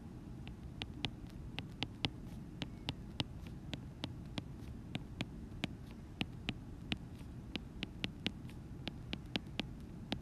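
Stylus tip tapping and clicking on an iPad's glass screen while tick marks and numbers are written by hand, short sharp clicks a few times a second at uneven spacing, over a steady low hum.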